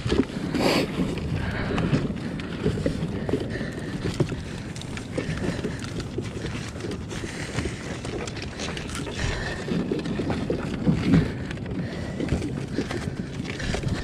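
Water sloshing and splashing around a kayak, with irregular knocks and bumps against the hull.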